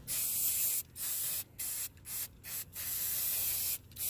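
Aerosol can of Krylon Fusion All-in-One spray paint hissing, in a series of short bursts with brief breaks between them; the longest burst comes just before the end.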